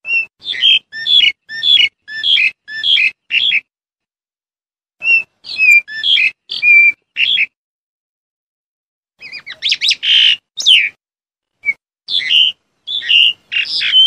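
Black-collared starling calling: loud, short, repeated notes in bouts separated by pauses of a second or two. About two-thirds of the way through comes a quick run of notes into one longer call.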